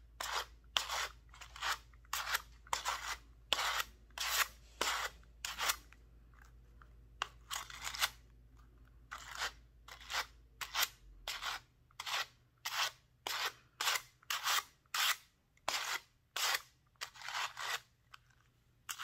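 Two wire-bristled pet slicker brushes hand-carding Samoyed fur, one brush stroked across the other so the bristles rake through the fibres. The strokes are short and even, about two a second, with brief pauses about six and eleven seconds in.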